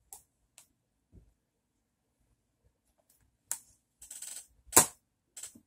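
Plastic Blu-ray cases being handled: a few faint clicks, then a cluster of clatter and rustling with one sharp, loud click near the end.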